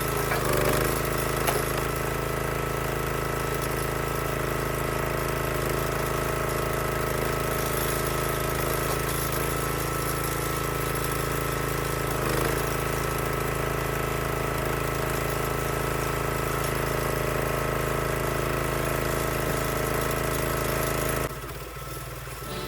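Small gas engine of a log splitter running steadily, its note shifting briefly about half a second in and again about twelve seconds in. Near the end it cuts off abruptly and music begins.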